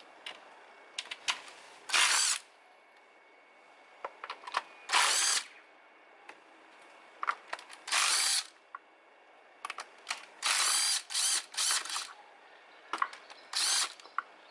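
Ratchet wrench ratcheting in about seven short bursts of half a second or so, with scattered single clicks between them, as bolts are undone to take the head cover off a Mini Cooper S engine.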